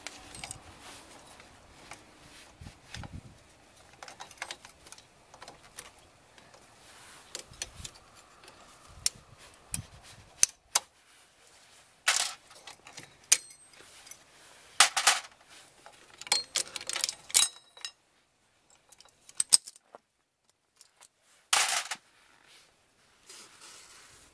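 Scattered sharp metallic clicks and clinks of pliers working the shoe springs of a Suzuki Palette's rear drum brake as the brake shoes are taken off, with a handful of louder clanks from about ten seconds in.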